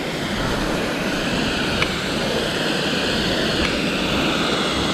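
Steady rushing noise of a waterfall, an even hiss, with one faint tick a little under two seconds in.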